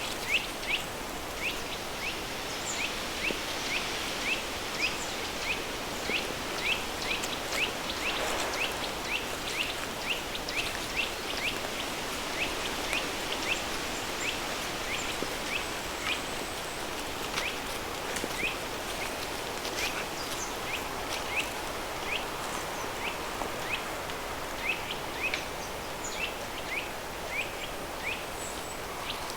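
Steady rushing of a river stream mixed with pink noise. Over it a bird calls in short, high repeated chirps, often about two a second, thinning out in the middle.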